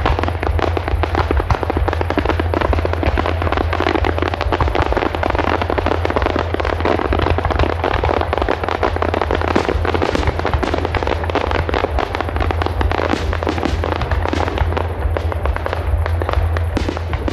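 Fireworks going off: a dense, continuous crackle of many small pops and reports.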